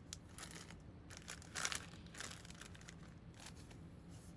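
Packaging being handled, crinkling in a few short rustles, the loudest about a second and a half in.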